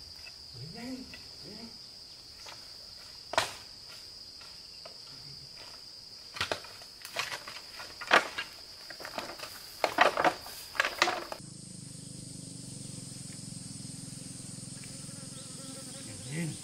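Insects buzzing steadily in a high, even drone, with sharp rustling and footsteps of people pushing through dense undergrowth, loudest in a cluster about two-thirds of the way in. A little later the sound cuts to a different, higher insect buzz over a low hum.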